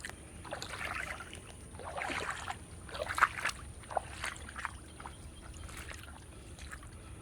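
Fishing boots wading slowly through ankle-deep floodwater, with a sloshing splash at each step about once a second.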